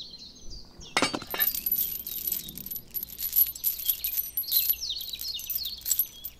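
Small metal toy chain clinking and chinking as it is handled and hooked onto a toy tractor's plastic hitch, a run of light metallic clicks from about a second in.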